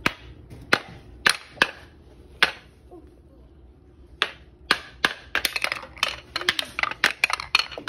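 Wooden mallet striking a wooden pound-a-ball toy, sharp wooden knocks. A few spaced strikes, a pause of about a second and a half, then a rapid flurry of quick strikes in the last few seconds.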